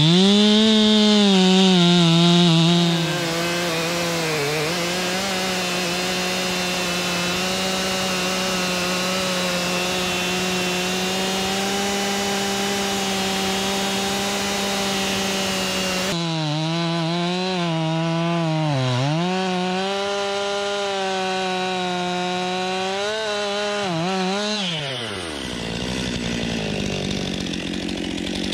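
Stihl MS 261 C-M two-stroke chainsaw revving to full throttle and bucking through a thick log, running steadily under load. Its pitch dips a few times as the engine stutters in the cut, then it drops back to idle near the end.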